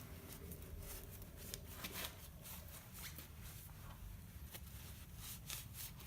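Faint rustling and light clicks of hands wiping and handling brake caliper slide pins while cleaning off old grease, over a low steady hum.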